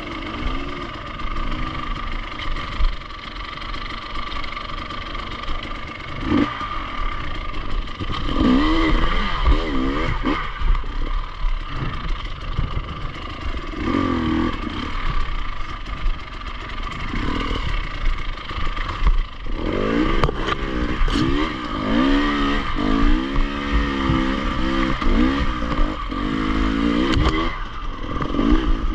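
Enduro motorcycle engine being ridden, its pitch rising and falling in repeated surges as the throttle is worked. The surges come more often after the first few seconds and are busiest in the second half.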